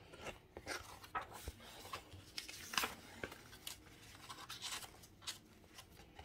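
Pages of a paperback colouring book being turned and handled: faint paper rustling with scattered soft taps, the sharpest rustle a little under three seconds in.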